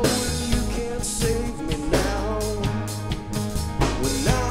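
A live rock band playing a song, with drum kit, guitars and bass under a gliding melody line.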